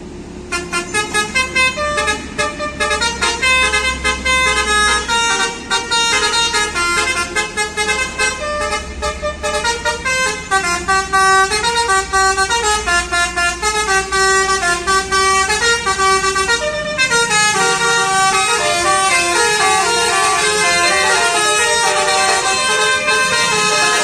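Bus telolet horns, multi-tone musical air horns, playing quick runs of stepped notes, tune after tune, without a break. A low rumble sits beneath and fades about two-thirds of the way through.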